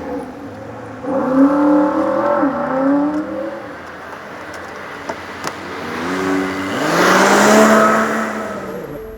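Car engines accelerating, their pitch rising and falling. A vehicle passes close about seven seconds in, bringing a swelling rush of engine and road noise that peaks and then fades.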